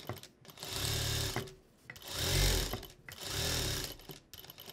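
Industrial sewing machine stitching in three short runs of about a second each, sewing a tape onto fabric.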